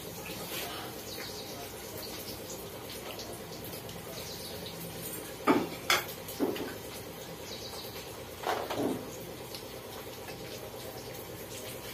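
Kitchen utensils and bowls clinking and knocking on the counter: a quick run of three sharp clatters about halfway through, then two more a few seconds later, over a faint steady hum.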